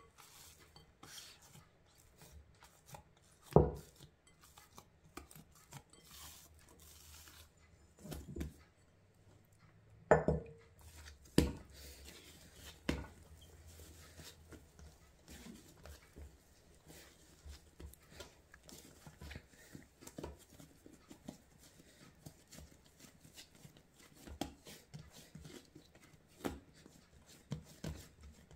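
Hands kneading soft bread dough, first in a glass bowl and then on a pastry mat: quiet pressing and handling noises with small irregular ticks, broken by a few sharp knocks, the loudest about three and a half and ten seconds in.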